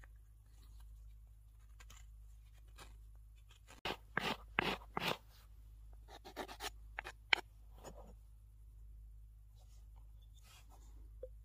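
A stone flake shaving and scraping a small stopper by hand, in short rasping strokes: a run of about five stronger strokes about four seconds in, a few more after it, and a faint one near the end.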